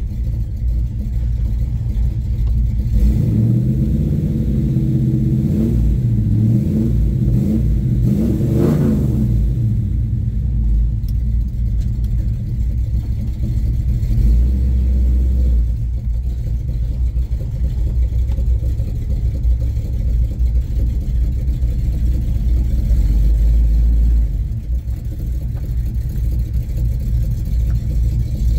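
A 1970 Chevrolet Chevelle's engine running as the car is driven, its pitch rising from about three seconds in and dropping back near nine seconds, then settling into a steady low rumble.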